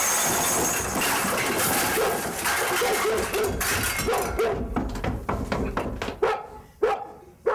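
A dog barking over and over, the barks growing sharper and more spaced out over the last couple of seconds. Before it come a few seconds of loud laughter and commotion.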